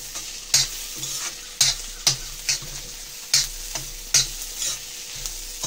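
A metal spatula stirring onion masala as it fries in a black iron kadhai: a steady sizzle with sharp scrapes and knocks of the spatula against the pan every half second to second.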